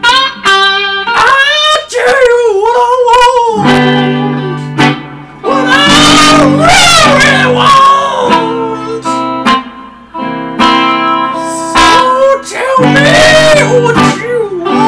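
Electric guitar playing blues chords and licks, with a voice singing over it in long, sliding phrases.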